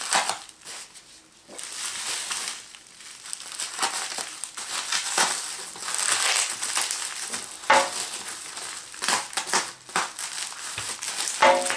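Bubble wrap and plastic packaging crinkling and crackling in irregular rustles as it is cut with a small knife and pulled off a wooden handle.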